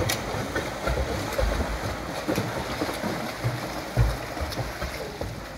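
Swimmers kicking and stroking through a pool, making continuous churning splashes, with one sharper slap of water about four seconds in.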